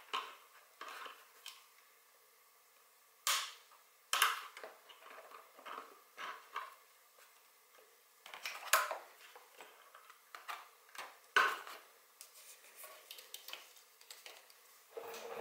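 Irregular clicks, knocks and light rattles of hand work as parts and hoses are pulled off a KTM RC390 motorcycle during disassembly. The loudest knocks come about two-thirds of the way through.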